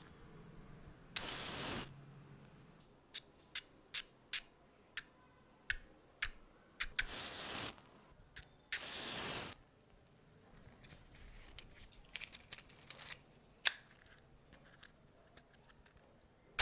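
Matches struck along the striker strip of a matchbox: three short scrapes, about a second in, near seven seconds and near nine seconds, with light clicks and taps of the box and matches being handled between strikes.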